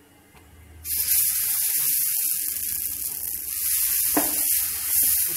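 Red lentil chilla batter sizzling on a hot iron tawa: a steady, loud hiss that starts suddenly about a second in, when the batter hits the hot griddle.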